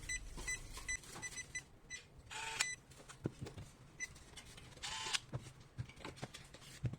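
Electronic combination lock's keypad giving a quick run of short identical beeps as a password is keyed in, with one more beep about four seconds in. Two brief sweeping tones sound about two and a half seconds apart.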